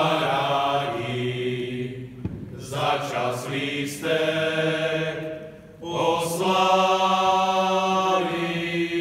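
Men's folk choir singing a cappella in close harmony: long drawn-out notes in slow phrases, with short breaths between them and new phrases starting about two and a half, four and six seconds in.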